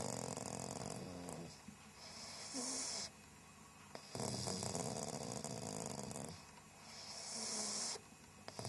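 A sleeping pug snoring: a low rattling snore alternates with a higher hissing breath, about two full breath cycles.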